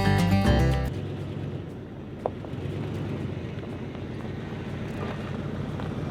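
Guitar music ends about a second in, then a John Deere tractor's engine runs steadily, a low rumble, with one short high chirp about two seconds in.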